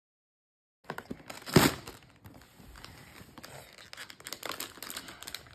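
Foil blind bag crinkling and crackling in a child's hands as it is torn open, starting about a second in, with one loud sharp crackle soon after.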